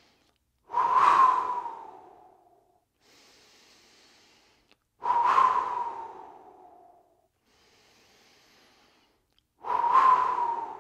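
A man doing double exhale pranayama breathing: a quiet inhale through the nose, then a strong exhale blown out through the mouth, three times about every four and a half seconds. Each exhale starts suddenly and fades away over about a second and a half, a short opening puff leading straight into the stronger release.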